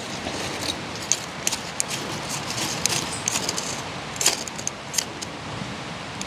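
Dry sticks and kindling snapping and crackling in irregular small sharps clicks, the loudest about four seconds in, over a steady hiss, as a wood fire is being built.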